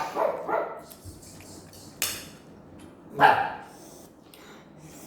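A dog barking a couple of times in short bursts, the loudest bark a little past the middle.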